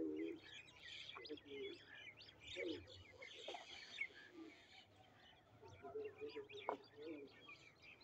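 A flock of small birds chirping and tweeting together in quick, overlapping bursts, with short lower-pitched calls mixed in every second or so.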